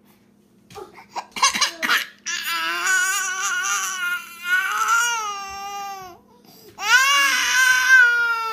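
Baby crying after its pacifier has been pulled from its mouth: a few short fussing sounds, then a long wail of about four seconds and, after a brief breath, a second wail near the end, each sliding down in pitch as it ends.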